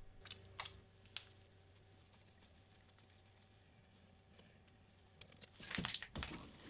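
Faint metal clicks from a tap and a steel workpiece being handled in a bench vise. A quick cluster of sharper clicks and knocks comes near the end.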